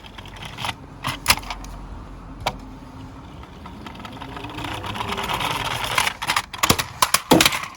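Toy minicars rolling down a slope: a few sharp clicks, then a rolling rattle that grows louder, ending in a clatter of knocks near the end.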